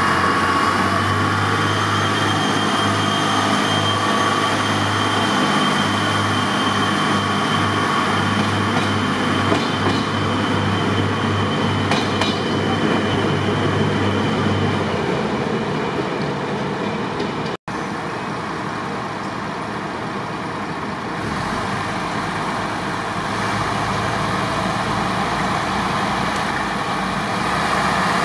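Diesel railcar running, a steady engine drone under wheel and track noise. After an abrupt cut about two-thirds of the way in, the sound is quieter, and a deep engine rumble builds toward the end.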